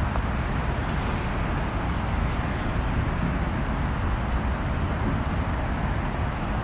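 Steady roar of road traffic, with wind buffeting the microphone in a rough, flickering low rumble.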